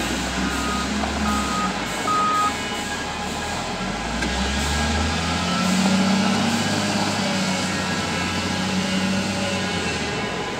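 Volvo L60F wheel loader's diesel engine running, with its reversing alarm beeping three times in the first few seconds. The engine then revs up as the machine moves off.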